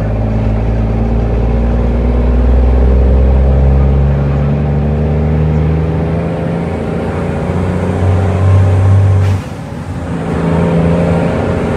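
Cummins N14 inline-six diesel in an International truck pulling under load, heard from inside the cab. About nine seconds in the engine drops away abruptly with a click, as at a gear change on the 13-speed transmission, then picks up again about a second later.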